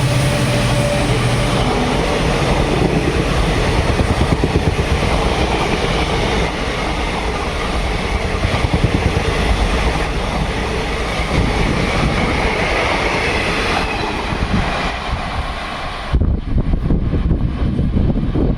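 A train passing close by: a loud, steady rumble of wheels on rails with a rapid clatter, while its horn fades out in the first second or so. About three-quarters of the way in, the higher rushing noise drops away suddenly, leaving a lower rumble.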